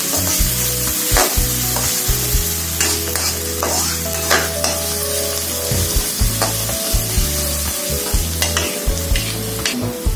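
Minced garlic and ginger sizzling in hot oil in a wok, being sautéed until fragrant. A metal spatula stirs them, scraping and clacking against the pan many times.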